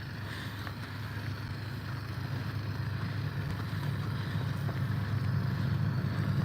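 A motor vehicle's engine rumble growing steadily louder as it approaches.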